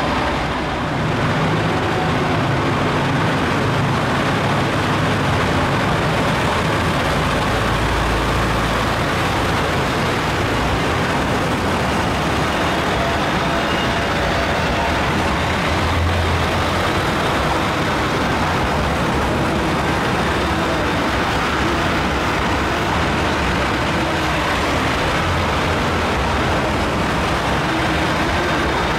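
Diesel railcar engines of a limited express train running at a standstill or moving slowly, a steady loud drone. It swells deeper about a quarter of the way in and again around the middle.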